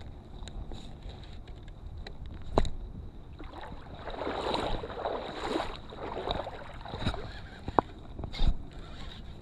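Spinning fishing reel and rod being handled, with a few sharp clicks. A noisy rush of outdoor wind and water from about three and a half to seven seconds in.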